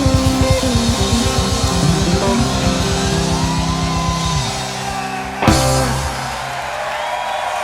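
Rock song with electric guitar and drum kit, with rapid drum hits under held guitar notes. It ends on one final loud hit about five and a half seconds in, after which the band stops and a steady, quieter noise remains.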